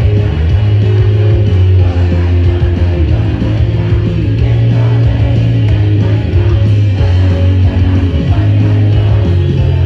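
Idol-pop song played loud through a stage PA system, with a heavy, steady bass line.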